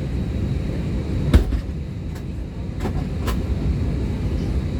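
Steady low rumble of an Airbus A321's cabin on the ground before takeoff, with a sharp knock about a second and a half in and two lighter clicks around three seconds.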